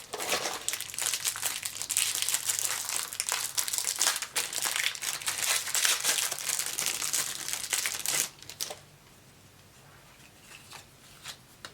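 Plastic wrapping on a trading-card box crinkling as it is handled and pulled open, with dense crackling that stops about eight seconds in. A couple of faint clicks follow near the end.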